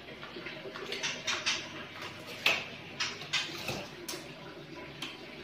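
A scatter of short, light clicks and knocks from handling a PVC ceiling panel and tape measure on a tiled floor, the sharpest about halfway through.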